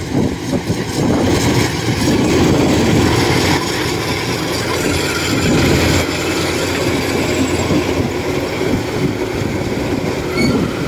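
Kubota DC-93 rice combine harvester running under load as it cuts and threshes rice, its engine and machinery making a steady, heavy mechanical noise. It is loudest in the first half as it comes close and passes by.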